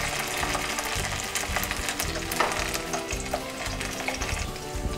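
Sliced potatoes sizzling and crackling in hot oil in a frying pan, with a spatula stirring and scraping them.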